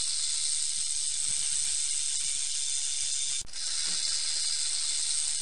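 Snake hissing sound effect: a long, steady, high hiss with one very short break about three and a half seconds in.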